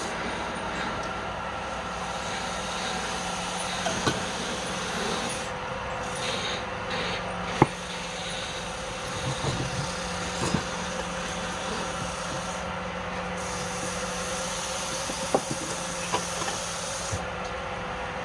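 Wood lathe running with a steady motor hum over a hiss, with a few sharp ticks scattered through it.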